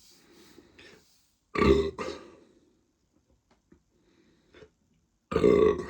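A person burping loudly, with gas from a large amount of fizzy lemonade gulped down fast. One burp comes in two pushes about a second and a half in, and a longer one comes near the end.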